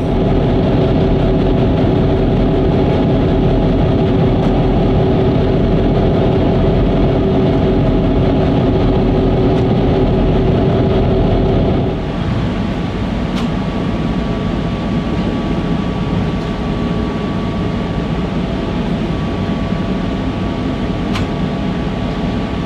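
EMD GP38-2 diesel locomotive's 16-cylinder two-stroke prime mover running steadily, heard inside the cab. About twelve seconds in it drops in level and a thin steady whine comes in.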